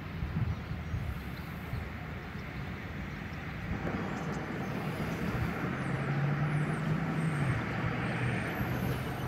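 A motor vehicle going by, its sound building up from about four seconds in, with a steady low engine hum in the middle.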